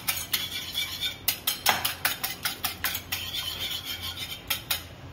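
Raw eggs being beaten by hand with a utensil in a glass bowl: quick rhythmic clinks of the utensil against the glass, about five strokes a second, that stop just before the end.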